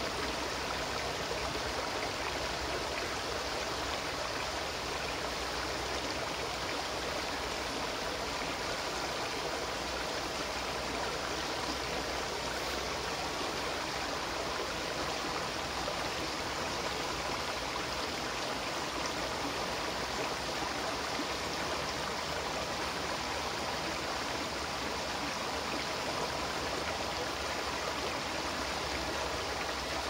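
Shallow mountain river flowing over rocks and pebbles: a steady, unbroken rush of water.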